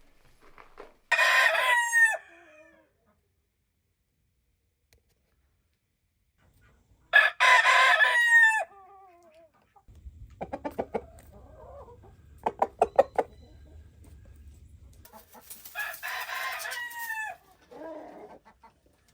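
Rooster crowing three times, each crow about a second and a half long and ending in falling notes, with a hen clucking in short runs between the second and third crows.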